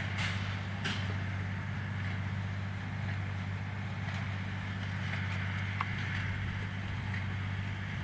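Distant tractor and John Deere 214T square baler running steadily in the field, a low, even drone with no change in pitch.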